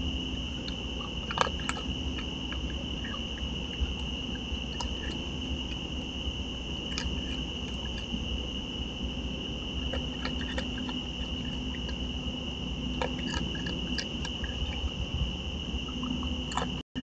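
A steady high-pitched trill of night insects, with scattered clicks and crunches of a raccoon chewing dry food pellets from a dish.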